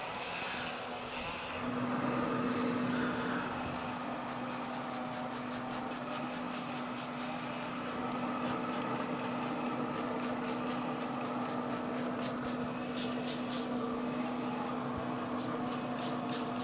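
Trigger spray bottle spritzing: runs of short hissing squirts, several a second, over a steady hum from the running Traeger pellet grill.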